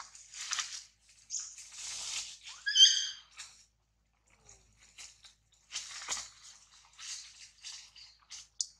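Leaves and branches rustling in short bursts as monkeys climb through a tree. About three seconds in, a monkey gives one short, high-pitched squeal, the loudest sound.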